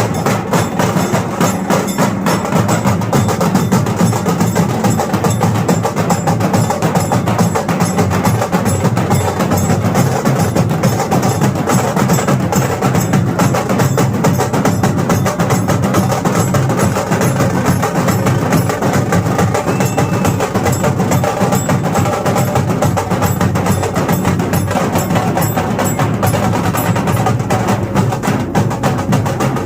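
Loud, continuous percussion-driven music with a fast, dense beat that never lets up.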